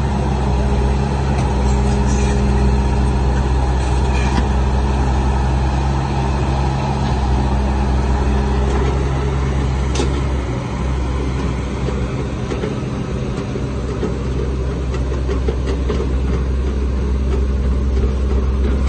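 Heavy diesel earthmoving machinery running steadily at a low, even pitch, with a sharp click about ten seconds in.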